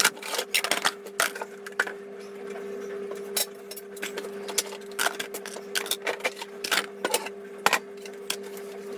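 Crockery, dishes and plastic containers clinking and knocking as they are lifted down from a kitchen cupboard shelf, many separate clatters. A steady low hum runs underneath.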